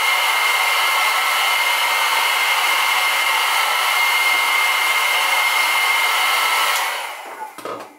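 Handheld hair dryer blowing on hair: a loud, steady rush of air with a thin high whine. It shuts off about seven seconds in, followed by a couple of brief soft knocks.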